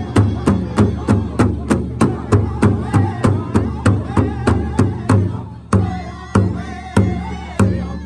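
Pow wow drum group striking a large hide-covered drum in unison with sticks while singing. The fast, steady beat runs at about four strokes a second, breaks off about five seconds in, then resumes as slower strokes about two-thirds of a second apart, with the singers' voices carrying between them.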